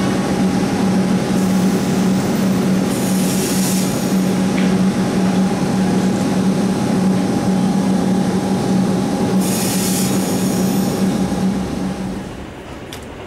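Victorian Railways Tait 'Red Rattler' electric suburban train moving off along the platform: a steady electric hum over the rumble of its wheels on the track, with two brief high-pitched squeals about three and ten seconds in. The sound drops away near the end.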